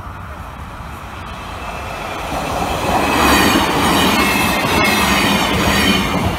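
Roslagsbanan narrow-gauge electric commuter train passing close by at a level crossing. Its rolling rumble builds over the first few seconds and holds loudest for about three seconds, with a high squealing whine from the wheels and rails over it.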